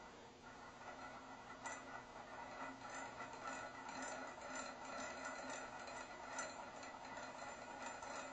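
Homopolar motor: a heart-shaped wire spinning on an AA battery standing on a disc magnet, its wire ends scraping and ticking against the battery tip and magnet in a fast, irregular rattle that picks up about a second and a half in.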